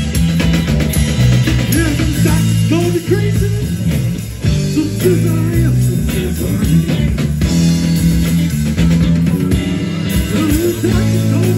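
Live rock band playing through amplifiers: electric guitars over a drum kit, with a lead line that bends up and down in pitch.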